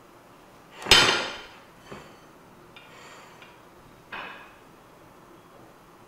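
A metal spoon knocking and scraping against a bowl while spooning out filling. One loud clatter with a short ring about a second in, a light tap a second later, faint scraping, and another knock a little after four seconds.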